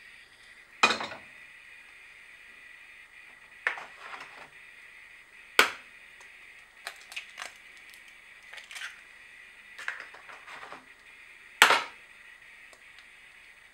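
A series of sharp knocks and clicks, about seven, irregularly spaced, the loudest about a second in and near the end, over a steady faint hiss.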